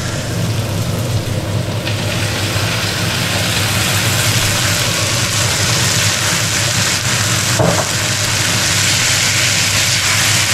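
Potatoes and onions sizzling steadily as they fry in an uncovered frying pan over high heat, with a steady low hum underneath and a short knock about two-thirds of the way through.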